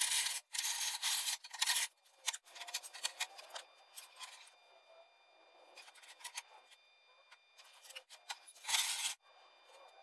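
Oxy-acetylene gas-welding torch hissing in uneven bursts against a steel wing repair panel. The noise is loudest in several short blasts in the first two seconds and again about nine seconds in.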